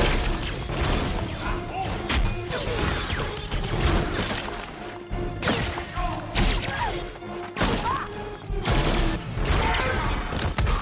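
Sci-fi film battle sound mix: repeated energy-weapon blasts and crashing impacts, with sparks and debris, over the film's music score.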